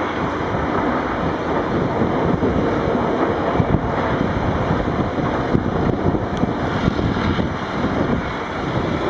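Wind buffeting the microphone over the steady rumble of diesel wheel loaders and dump trucks working in a rock quarry.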